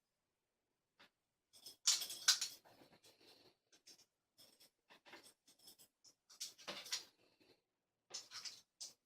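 Lock pick and tensioner scraping and clicking inside the keyway of a vintage Yale brass lever padlock, in short irregular bursts, as the levers are worked.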